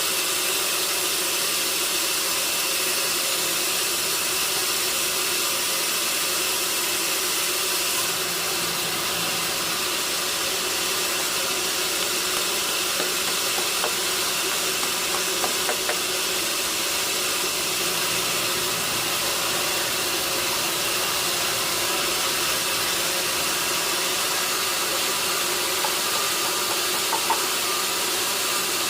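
Sawmill machinery running steadily: a constant hiss over a steady mechanical hum, with a few small ticks about halfway and near the end.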